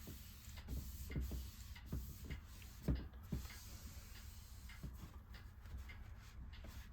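Soft thumps and small clicks as hands press an iMac's glass screen down onto its frame to seat it on the adhesive tape. The knocks are irregular and come mostly in the first few seconds.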